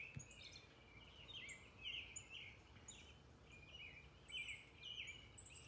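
Faint birdsong: birds chirping in a steady run of short notes, many dropping quickly in pitch.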